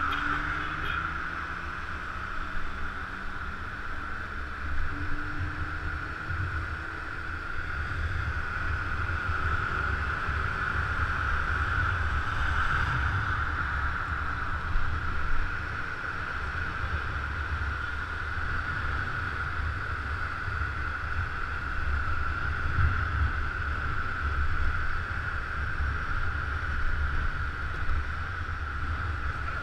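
Motor scooter ride: wind buffeting the microphone as a low rumble over the engine running steadily, with a steady high whine throughout. In the first few seconds the engine note rises as the scooter speeds up.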